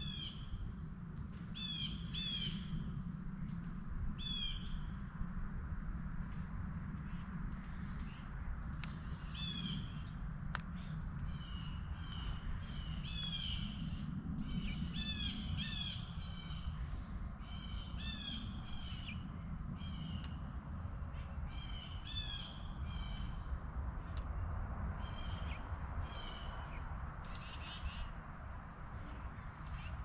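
Small songbirds chirping and calling over and over, with short, high notes that slide downward, sometimes several in quick succession, over a steady low rumble.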